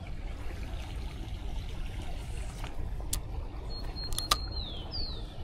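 Steady low outdoor rumble by a flooded creek, with a few sharp clicks and a short high whistle that falls in pitch about four seconds in.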